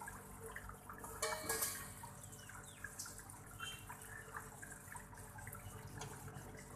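Water splashing and dripping over a steady low hum, with a louder splash about a second in.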